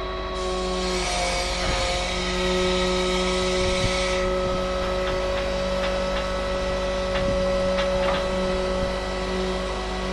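Hydraulic system of a truck's tilt-and-slide bed running under load as the bed pushes a heavy pallet off, a steady whine of the pump with a slight shift in pitch about a second in. A hiss over the first four seconds and a few light clicks later.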